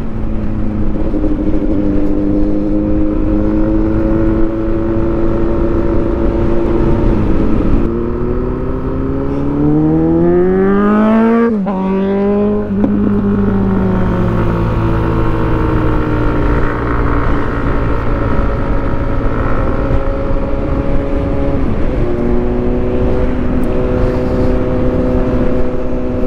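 Motorcycle engine under way, running at a steady pitch, then rising as it accelerates and dropping sharply at a gear change about halfway through, then running steadily again.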